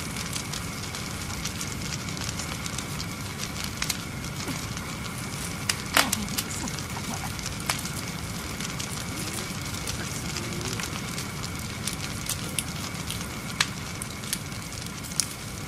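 Wood fire crackling, with irregular pops and snaps over a steady hiss and one louder snap about six seconds in. A faint steady high hum runs beneath.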